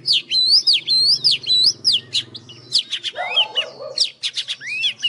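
Oriental magpie-robins singing, labelled as a female and a young bird: a fast run of sharp, clear whistled notes that slur up and down, in quick bursts with short pauses. About three seconds in comes a brief harsher, rougher note.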